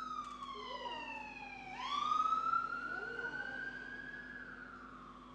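An emergency vehicle's siren wailing: its pitch falls slowly, sweeps sharply back up about two seconds in, where it is loudest, then falls again and fades near the end.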